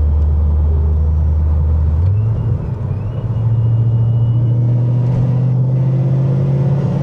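2012 Shelby GT500 Supersnake's supercharged V8 running as the car drives. About two seconds in, its low drone steps up in pitch, then climbs slowly as the car picks up speed.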